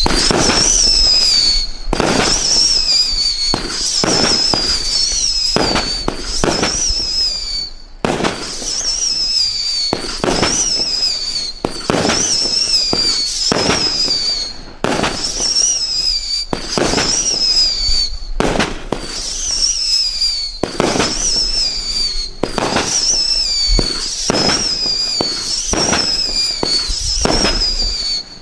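Bright Star 'The Jack Hammer' (BS8046) firework cake firing a rapid run of shots: each one a high, wavering whistle mixed with sharp bangs and crackles, with a few brief pauses between volleys.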